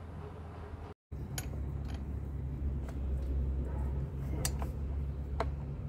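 Sharp, short clicks of hand work fitting an anode onto a boat's rudder shaft, about five spread over several seconds, over a steady low hum.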